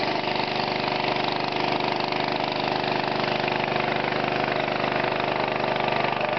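Small boat's motor running steadily at an even speed.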